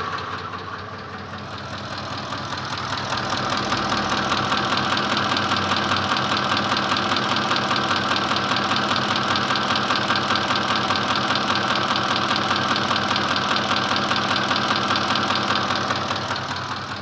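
Ford 5.4 Triton 3-valve V8 running, with a fast, even knock from the engine, the knock the owner has recently noticed and is trying to diagnose. It grows louder about three seconds in and eases off near the end.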